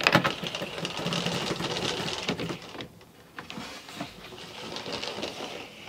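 Folding concertina divider screen in a caravan being pulled closed along its newly fitted ceiling track to test it, its gliders running along the track in a dense rattle of clicks for about three seconds. After a short pause comes a quieter stretch of sliding and clicking as the screen settles.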